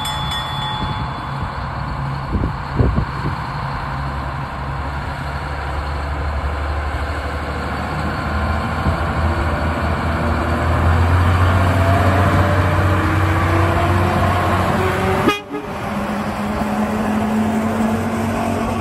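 Diesel switcher locomotive's engine running under load as it pulls a narrow-gauge passenger train past, growing louder as it draws close, with the sound cutting out for an instant near the end.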